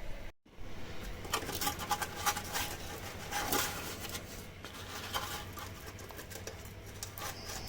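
Irregular light clicks, taps and scratching from hand work on corroded steel bodywork around the van's wheel arch.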